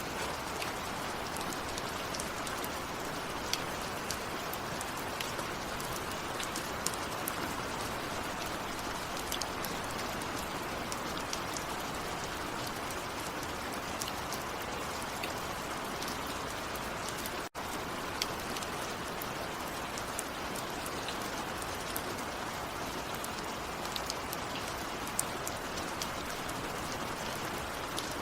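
Steady rain falling, an even hiss with many individual drops ticking on a surface. A split-second dropout about two thirds of the way through.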